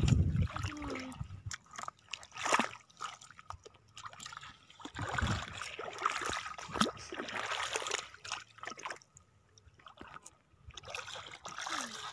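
Irregular splashing and sloshing of shallow water and wet sand underfoot on a tidal flat, with scattered sharp clicks.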